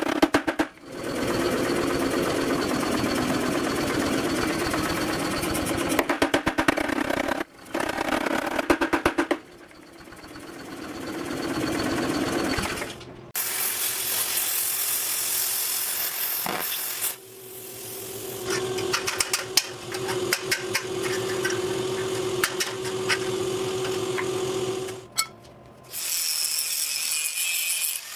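Power tools and machinery running in a series of short segments that change abruptly, some with rapid regular strikes and one with a steady hum.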